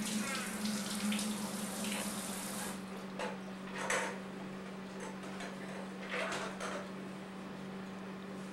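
A few short knocks and rattles of a hollow plastic toy dome being picked up and handled, over a steady electrical hum. A hiss in the first few seconds stops abruptly about three seconds in.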